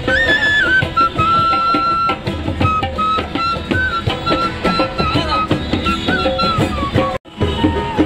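Bamboo flute playing a folk melody with held notes and small slides, over strummed guitar and ukulele and tambourine beats. The music cuts out sharply for a moment about seven seconds in.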